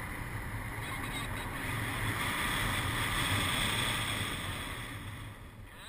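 Wind rushing over the camera microphone in paraglider flight. It is an even rush with a low rumble underneath, swelling to its loudest around the middle and easing toward the end.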